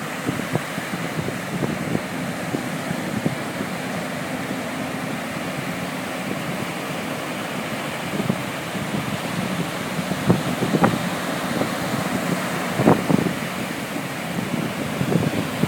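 Waves breaking and washing up the beach with wind buffeting the microphone, over a faint steady low engine hum.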